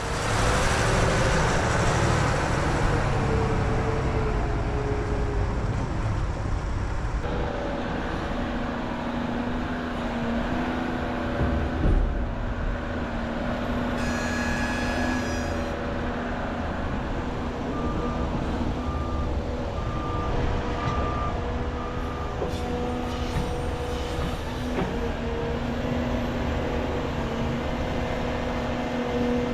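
Heavy diesel earthmoving equipment running steadily under load. A backup alarm beeps about once a second for a few seconds a little past halfway.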